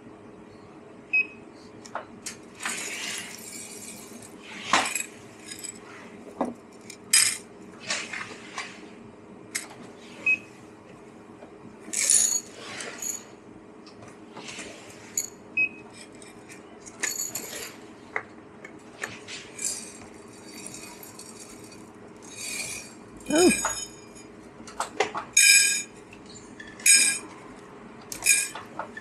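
Ceramic cups, saucers and metal utensils clinking and knocking as they are handled behind a coffee bar, a couple of dozen separate strikes, many of them ringing briefly, over a steady low hum.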